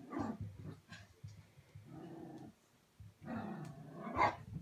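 Small dogs growling at each other in rough play, in a few short bouts, the last one the loudest.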